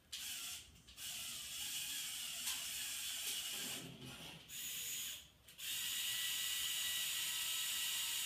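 Small electric motors and plastic gear train of a motorized LEGO Technic crane whirring as the boom lowers from upright. The whir runs in stretches, stopping briefly about a second in, about three and a half seconds in, and again about five seconds in.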